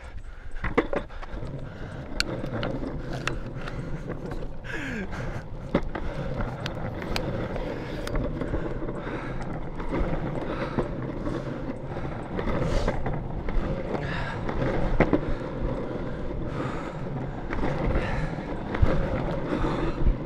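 Longboard wheels rolling over pavement: a steady rumble, with sharp clicks now and then.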